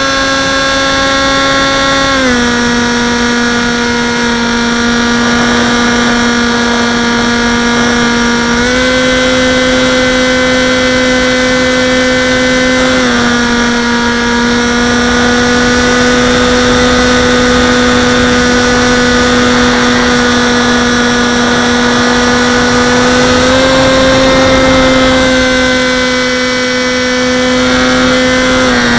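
Electric motor and propeller of a Dynam Hawk Sky RC plane in flight, heard from a camera mounted on the plane: a steady buzzing whine. Its pitch steps with throttle changes: down about two seconds in, up a little around nine seconds, slightly down around thirteen, up around twenty-four and down again near the end.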